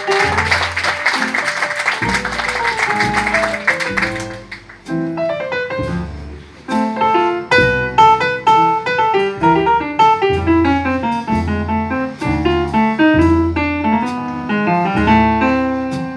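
Live small-group jazz: a saxophone plays a phrase over piano and plucked double bass, ending about four seconds in. The grand piano then plays a solo of chords and runs, with the double bass plucking low notes beneath.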